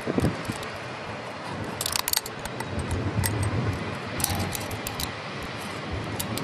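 Wind buffeting the microphone in gusts, with clusters of small sharp clicks about two seconds in and again around four to five seconds in.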